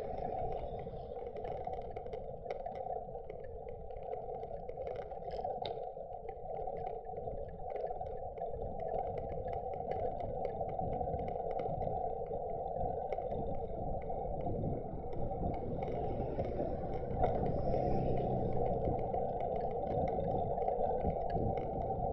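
Road noise from a bicycle ride recorded on a helmet-mounted camera, with passing car traffic. The wind noise has been filtered out, leaving a steady hum with faint ticks, and it grows louder about two-thirds of the way through.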